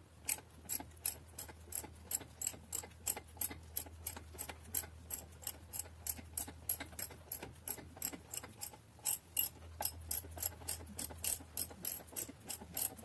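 Ratchet wrench clicking evenly, about three clicks a second, as the engine is turned over by hand, over a faint low steady hum.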